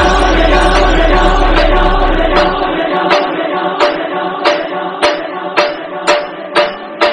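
Background music: choir-like chanted singing over a sustained drone, with a steady percussive beat of about two strikes a second coming in about two and a half seconds in.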